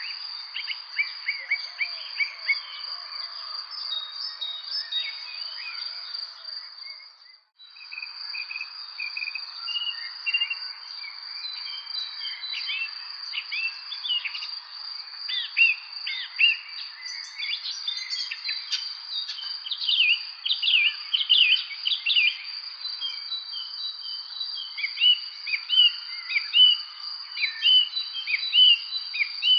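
Many small birds chirping in quick short notes over a steady, high insect trill. The whole sound drops out briefly about seven seconds in.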